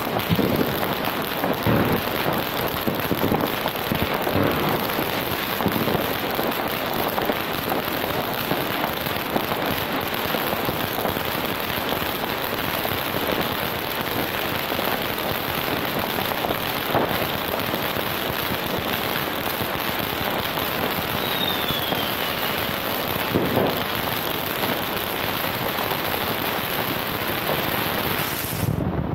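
Fireworks: a dense, continuous crackling and popping from many firecrackers and rockets, with sharper bangs in the first few seconds, around the middle and again past two-thirds of the way through. One short falling whistle is heard a little after the middle.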